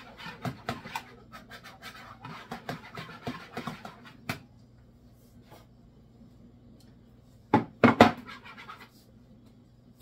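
Danish dough whisk stirring water and yeast in a plastic bowl: quick scratchy scraping, dense for the first four seconds and then sparse. A few loud knocks come about three-quarters of the way through.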